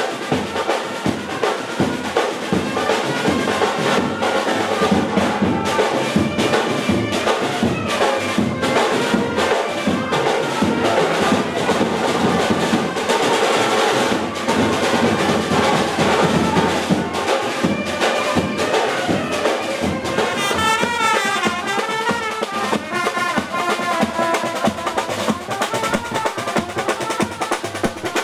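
Music of brass instruments over steady drumming, a band-style tune with a wavering high melody line about two-thirds of the way through.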